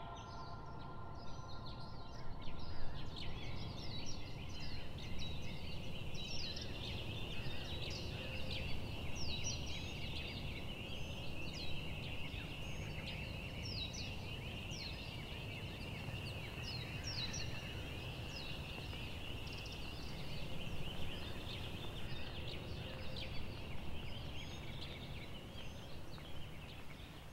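Outdoor ambience of many birds chirping in short quick calls, over a steady high-pitched drone and a low rumble, fading out at the end.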